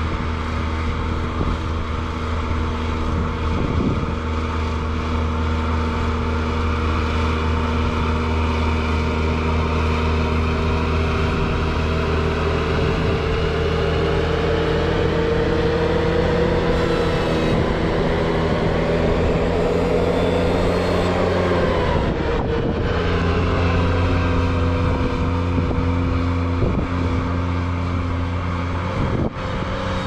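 Ventrac 4500Z compact tractor with a KX480 snowblower running steadily while clearing snow. A higher whine rises in pitch through the middle and drops back about two-thirds of the way through.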